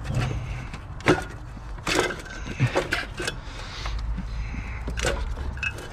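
Metal parts knocking and clunking as the cylinder head of an R53 Mini Cooper S engine is worked loose from the block: about six sharp knocks spread over several seconds.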